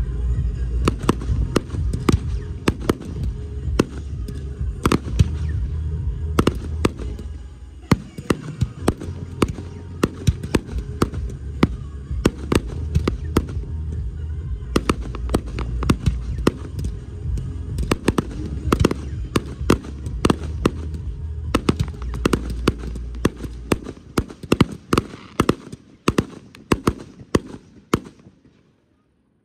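Fireworks shells bursting in rapid, overlapping bangs and crackles over music with a heavy bass. The music stops about 24 seconds in, and the bangs thin out over the last few seconds.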